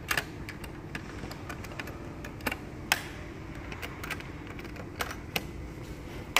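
Irregular light clicks and taps, roughly one a second, over a steady low hum.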